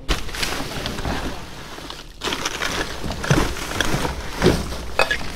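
Black plastic garbage bags rustling and crinkling as a hand grabs and pulls them around in a dumpster. It starts abruptly, eases off briefly about two seconds in, then resumes louder.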